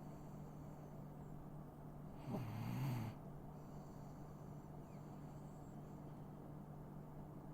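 A 16-year-old dog snoring in its sleep: one loud snore about two seconds in, lasting under a second, with quieter breaths either side.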